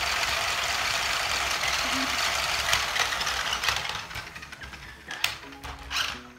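Battery-powered remote-control stunt toy driving on a tile floor: a steady whir of its small motors and wheels for about four seconds, then quieter with a couple of sharp knocks.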